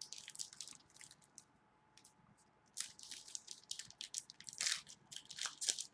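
Trading cards and pack wrappers being handled: a run of short, quick crinkling crackles that pause for about a second, a second and a half in, then pick up again just before three seconds.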